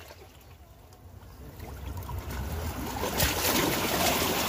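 Seawater washing and trickling over shoreline rocks, faint at first and swelling louder about two seconds in as the water surges across the rocks.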